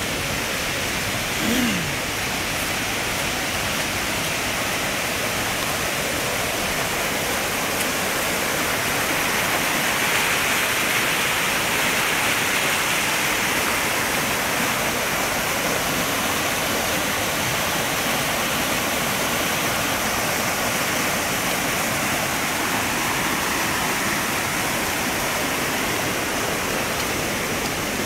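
Waterfall's water rushing steadily, swelling a little about ten seconds in.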